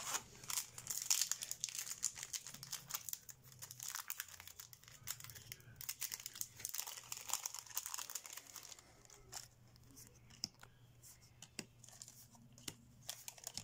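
A foil trading-card booster pack crinkling and tearing as it is opened, dense crackling for most of the first two-thirds. Then come sparser light clicks and rustles of cards being handled.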